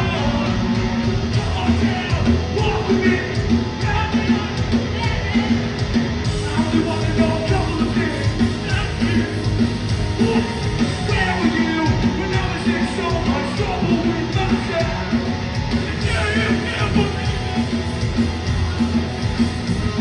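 Hardcore punk band playing live at full volume: electric guitars, bass and drums under shouted vocals.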